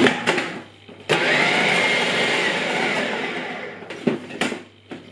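Food processor motor running for about three seconds, chopping a thick almond and cashew paste that is not yet smooth, then winding down. A couple of knocks from handling the plastic lid come before it starts.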